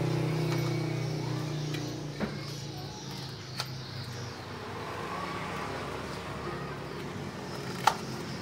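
A motor vehicle engine running steadily nearby, fading out about halfway through. Under it, a few sharp clicks as a knobby MTB tyre is worked onto its rim by hand, the loudest near the end.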